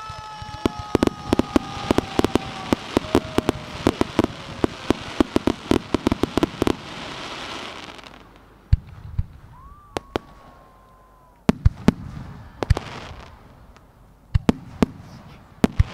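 Fireworks being fired: a rapid run of sharp pops and crackles over a hissing rush, with whistling tones, for the first eight seconds. A lone whistle follows around ten seconds, and then loud separate bangs of shells bursting in the last few seconds.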